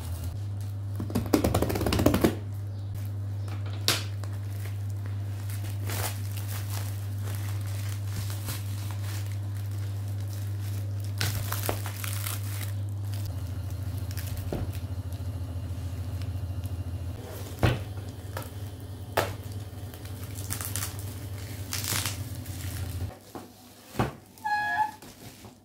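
Plastic wrapping crinkling and tearing as a parcel wrapped in black plastic and clear film is opened, with light knocks of plastic-bagged wire shelf organizers being handled. A steady low hum runs underneath and stops shortly before the end.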